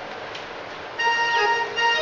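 Instrumental Marathi song played on a Yamaha electronic keyboard with synth accompaniment: held notes, quieter at first, then louder from about a second in, with a quick falling glide.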